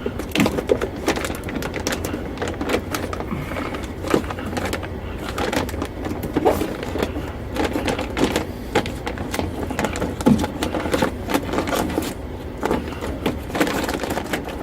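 Irregular crinkling and clicking of plastic being handled and pressed into place: the door's plastic moisture shield being stuck back onto the inner door panel.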